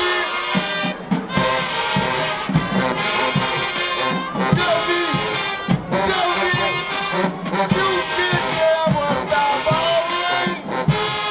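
Marching band brass section playing, trumpets and trombones, with several brief breaks between phrases.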